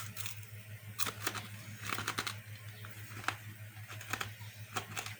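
Crunching and chewing of hard pork scratchings: irregular sharp crackles, a few a second.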